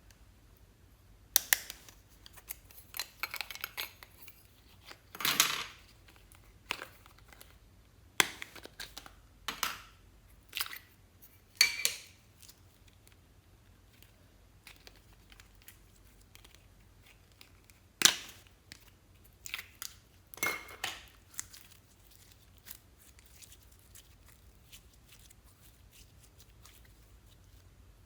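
Slime being handled and mixed, with intermittent sharp clicks, pops and crackles, most of them in the first half and a couple more later on.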